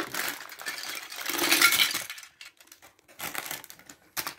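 Plastic LEGO DUPLO bricks clattering and a clear plastic bag crinkling as a bag of bricks is shaken and emptied, a dense rattle for about two seconds, then a few separate clicks of bricks being picked up and set down.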